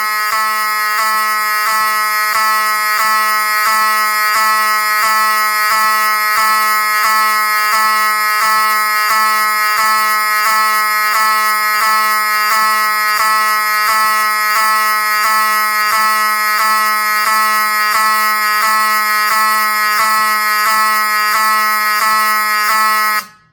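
Wheelock V7001T-24 fire alarm horn sounding: a loud, harsh tone repeating in short rising sweeps, which cuts off suddenly near the end.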